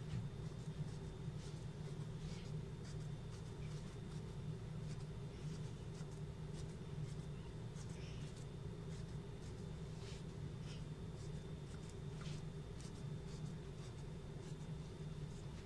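Wooden skewer being pushed again and again into a baked sponge cake in a glass baking dish to pierce it, giving faint, irregular scratchy taps over a steady low hum.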